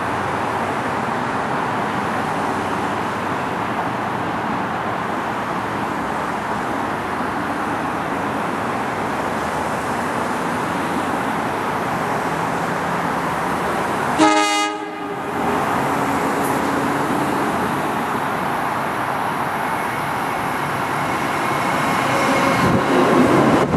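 NJ Transit Arrow III electric multiple-unit train approaching and pulling into the station with a steady rumble. It grows louder near the end, with wheel clicks over the rails as the lead car reaches the platform.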